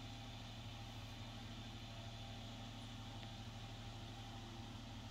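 A steady low mechanical hum, even throughout, with nothing else standing out.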